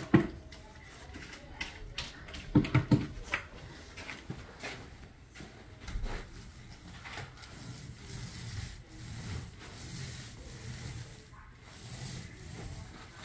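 Paint roller on an extension pole knocking and scraping against the roller grid of a paint bucket a few times in the first three seconds as it is loaded, then rolled across the ceiling with a steady rubbing sound as it spreads the wet paint.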